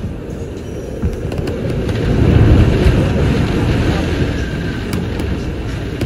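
Strong typhoon wind gusting through garden trees, a deep rushing rumble. A gust swells about two seconds in and slowly eases off.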